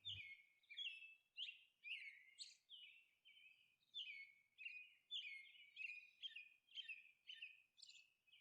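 Faint birds chirping: short, high, repeated chirps, some falling in pitch, with a pause of about a second a little under three seconds in.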